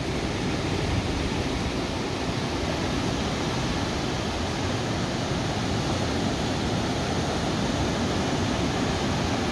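Steady rushing noise of ocean surf breaking along the beach.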